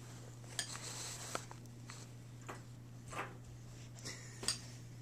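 Handling noise right at the microphone: scattered soft clicks and rustles, half a dozen or so, over a steady low hum.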